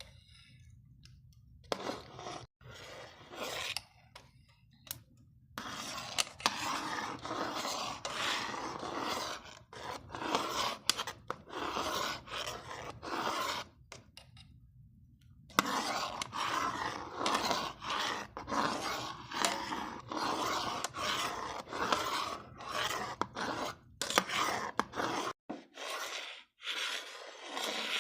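A utensil stirring sago and scraping against the inside of a cooking pot in repeated, irregular strokes, with brief pauses near the start and about halfway.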